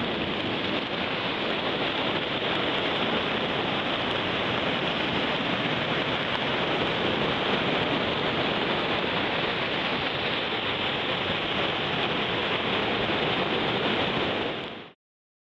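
Muddy stormwater runoff from a storm drain rushing across the beach into the surf: a steady rush of water that cuts off suddenly near the end.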